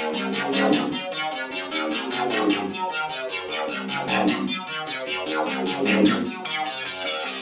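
Oberheim OB-12 virtual-analog synthesizer playing a fast, repeating run of short notes, the sound swelling brighter about every two seconds. It is a play-test showing the synth still works after a repair.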